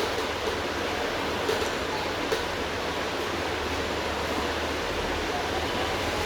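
Steady rushing hiss, with a couple of small clicks about one and a half and two and a half seconds in.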